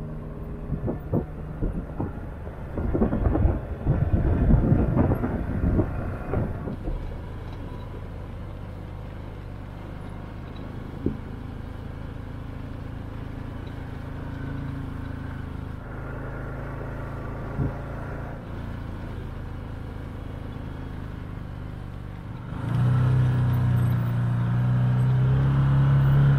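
Can-Am Maverick Sport 1000 side-by-side's V-twin engine running as it drives a rough dirt trail, with crackling and crunching from the tyres over stones in the first few seconds. Then a steady engine drone, which gets louder near the end as the engine pulls harder.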